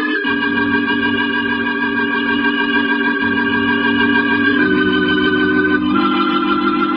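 Organ music playing slow, sustained chords, moving to new chords about two-thirds of the way through and again near the end.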